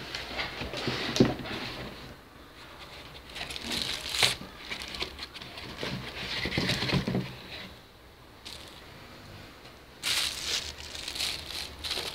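Clear plastic bag crinkling and molded-pulp packing trays rubbing and knocking as they are handled, in irregular bursts with a few sharp knocks.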